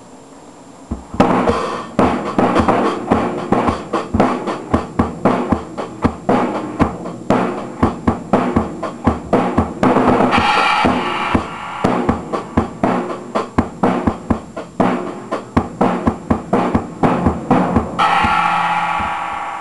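Drum kit played as a warm-up: fast kick, snare and tom hits starting about a second in, with cymbal wash near the middle and a crash cymbal ringing out and fading near the end.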